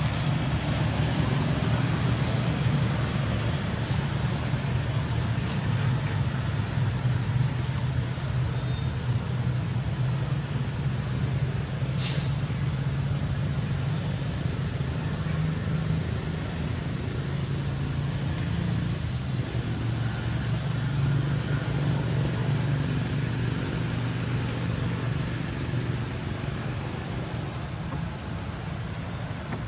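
Steady low background rumble throughout, with faint short high chirps scattered through it and a single sharp click about twelve seconds in.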